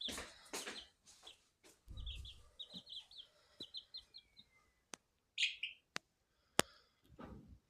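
A baby chick peeping: a quick run of short, high cheeps, then a single louder call a little later. A few sharp clicks and a low thump fall in between.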